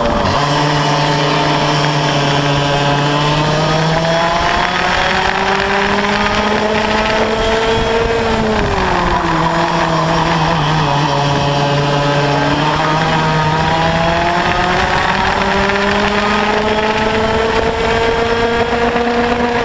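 Yamaha KT100 two-stroke kart engine with a Y-pipe exhaust, heard onboard at racing speed. Its high, buzzing note climbs slowly as the kart accelerates, drops briefly about eight seconds in, then climbs steadily again through the rest.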